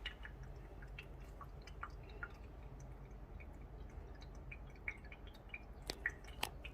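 Electric cat drinking fountain running just after being plugged in: water dripping and trickling faintly in small, irregular drops.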